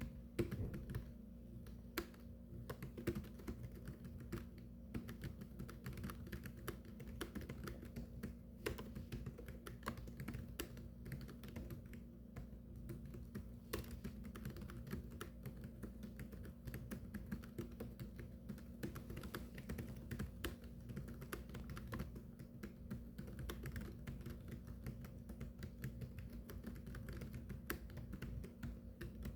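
Continuous typing on a computer keyboard: a fast, uneven stream of key clicks over a low steady hum.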